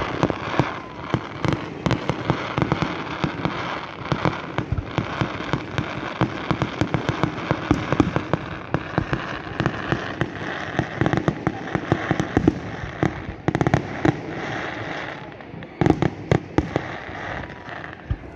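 Fireworks display going off in a rapid, continuous barrage: many sharp bangs over steady crackling, with a cluster of louder bangs a couple of seconds before the end.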